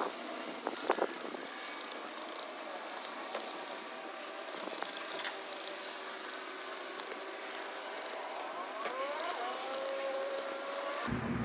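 Utility knife blade scraping the enamel off the end of copper magnet wire, a run of short dry scratches and clicks.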